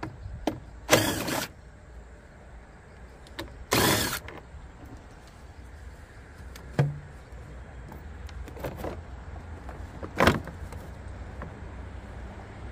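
Handling noise from work on the riding cultivator's wiring: three short scraping, rustling bursts, about a second in, about four seconds in and near the end, with a sharp click between them, over a faint steady low hum.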